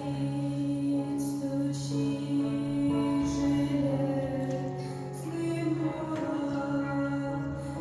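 Music: a slow song with long held sung notes.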